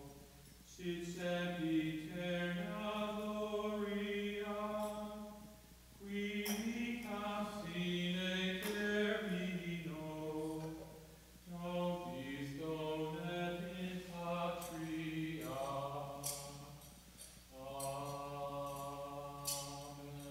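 Slow church hymn chanted by a singing voice in long held phrases of a few seconds each, with short breath pauses between them.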